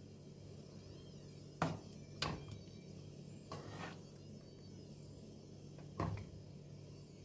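A metal spoon stirring mulberries in syrup in a pot, knocking against the pot's side with a few sharp clinks and one longer scrape, over a steady low hum.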